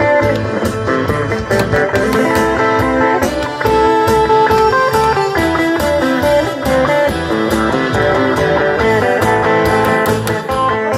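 Instrumental break of a backing track played through a PA speaker: a guitar lead over a steady drum beat, with no singing.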